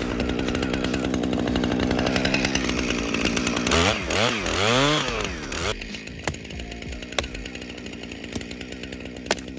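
Gas chainsaw cutting branches, revved up and down several times around four to five seconds in, then dropping off suddenly at about six seconds. A few sharp cracks follow.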